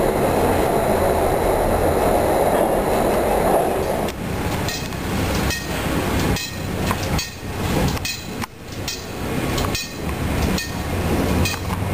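Passenger train running on its rails: a dense, steady rumble echoing inside a tunnel gives way about four seconds in to looser, uneven rattling and clacking of the wheels and cars in the open.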